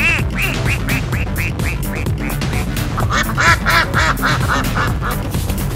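Quick run of high, squeaky duck-like quacks, about four a second, laid over electronic music with a steady beat. A louder, lower run of quacks comes about three seconds in.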